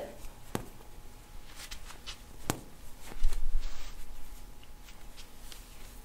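Two short sharp clicks about two seconds apart, from the elbow joint cracking as it is manipulated. Around three seconds in comes the loudest sound: a dull thump with a rustle.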